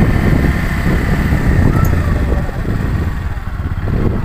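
Low, steady rumble of a moving vehicle's engine and road noise.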